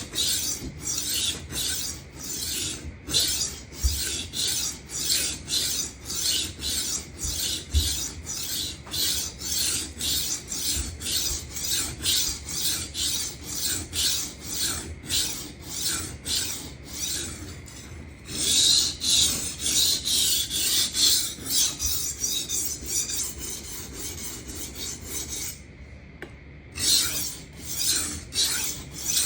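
Steel knife blade being stroked back and forth across a 400-grit Atoma diamond sharpening plate, a gritty scrape at about two strokes a second. About two-thirds through the strokes turn into quicker, continuous scrubbing, then stop briefly before the slower strokes resume. This is the second side of the edge being ground to raise a burr.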